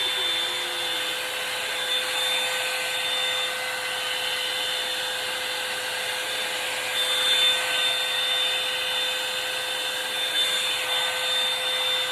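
Revlon One Step hot-air brush dryer running steadily: a rush of blown air with a steady high whine from its motor, swelling a little now and then as the brush is worked through the hair.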